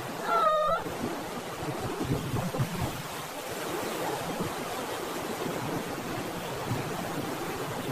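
Hurricane storm-surge water rushing and breaking in waves, with wind, as a steady roar of noise. A short pitched cry sounds about half a second in.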